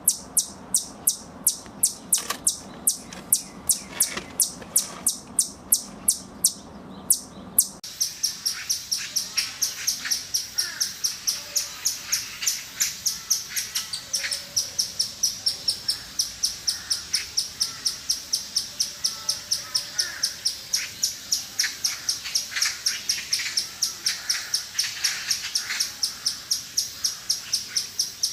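Squirrel calling in a rapid, even series of sharp high chips, about three a second. From about eight seconds in, a second recording follows with faster chips, about five a second.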